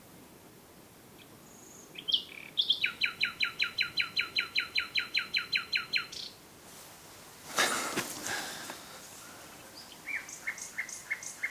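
Common nightingale singing at night: after a few opening notes it delivers a fast run of about twenty identical notes, roughly six a second, each dropping sharply in pitch. A brief harsh burst comes about eight seconds in, and another run of notes starts near the end.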